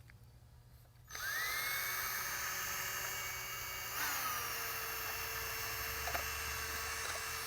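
Electric drill spinning a mixing paddle through a small batch of two-part water-based polyurethane, starting about a second in with a rising whine and then running steadily. Its pitch dips briefly and recovers about four seconds in.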